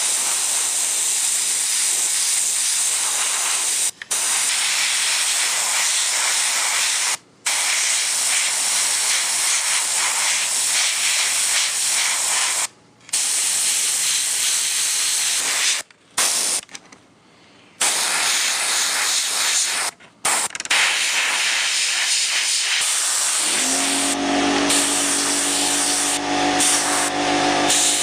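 Airbrush hissing steadily as it sprays paint, cutting off briefly several times where the trigger is let go. A steady machine hum with several tones joins near the end.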